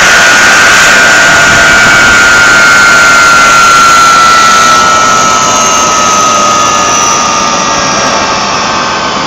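Boeing 757 No. 1 turbofan engine running on the ground for a chip detector leak check, heard close to the intake: a loud rushing noise with a high whine that sinks slowly in pitch and eases slightly in level over the second half.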